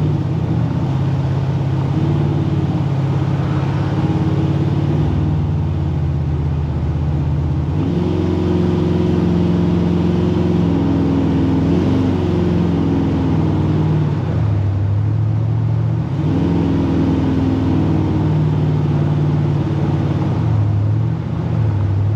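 7.0-litre LS7 V8 engine of a restomod 1967 Chevy C-10 pickup running steadily while the truck drives along, its pitch rising and falling a few times with the throttle.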